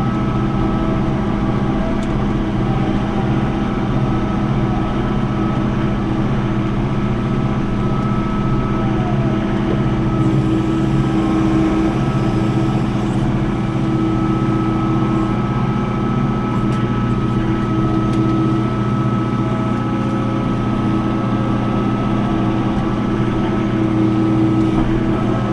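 John Deere 4066 compact tractor's diesel engine running steadily under load while it works dirt, with a brief hiss about ten seconds in.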